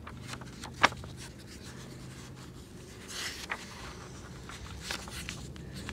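Paper rustling and pages being handled and turned in a worn, loose-bound reference book, with one sharp tap about a second in, over a faint steady low hum.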